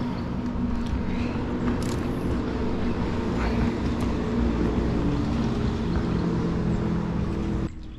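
Boat's electric trolling motor running at a steady hum, then cut off abruptly near the end.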